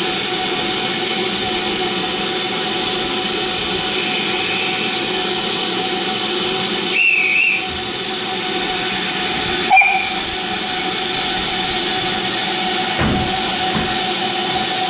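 Steady hiss of steam from the standing BR Standard class 4 tank locomotive 80002. About seven seconds in a guard's whistle gives a warbling blast as the right-away signal to depart, a second short, sharp whistle follows about three seconds later, and a couple of low thuds come near the end.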